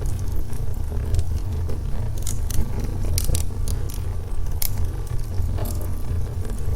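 Wood logs burning in a fireplace: irregular sharp crackles and pops over a steady low rumble of the fire.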